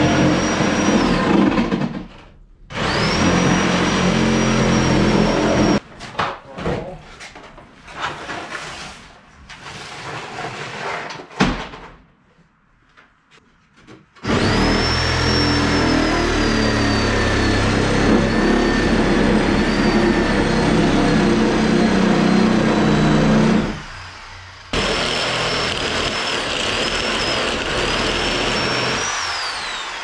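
Electric power saw cutting through the wooden framing of a garage door opening, running in several separate cuts with short stops between them. Its high motor whine sags in pitch as the blade works through the wood.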